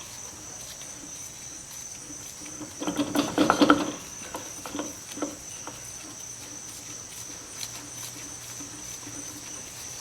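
Metal clinks and knocks of hand tools and parts as a brake-drum hub puller is worked. There is a short cluster about three seconds in and scattered single clicks after it, over a steady high-pitched whine.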